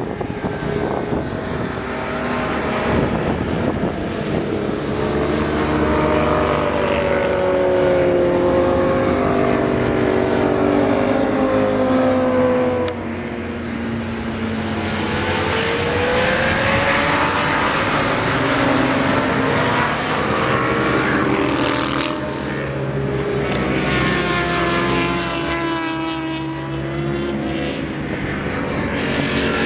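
Several motorcycles passing at speed on a race circuit, their engine notes overlapping and rising and falling in pitch as they go by.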